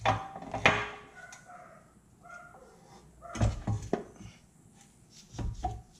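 Clicks and clunks of a bushing press cup and a greased polyurethane bushing being handled and set against a car's rear trailing arm. There are two sharp clicks in the first second, then dull knocks about three and a half seconds in and again near the end.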